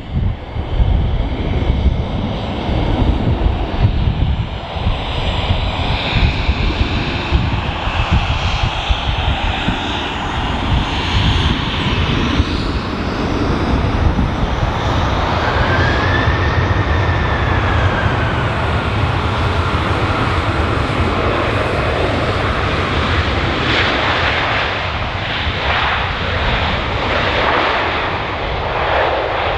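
Airbus A330-300's General Electric CF6-80E1 jet engines as the airliner touches down and rolls out along the runway: a steady jet rumble with a whine that rises and then falls about halfway through. Wind buffets the microphone in the first few seconds.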